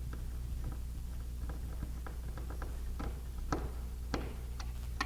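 A screw being driven into a keypad back plate on the wall with a screwdriver: light, irregular clicks and ticks, a few sharper ones in the second half.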